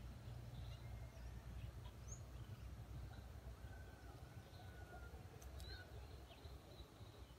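Near-quiet outdoor ambience: a steady faint low rumble, with a few faint, short chirps of small birds and a thin drawn-out whistle.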